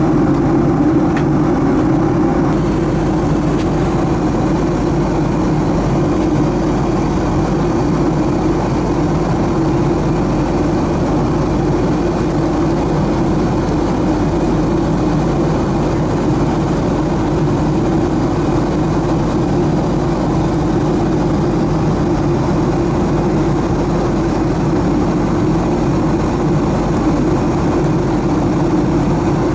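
Cabin noise of a Boeing 767-300ER airliner in flight, heard from a window seat just ahead of its GE CF6 turbofan engine: a steady low engine hum over a constant rushing hiss.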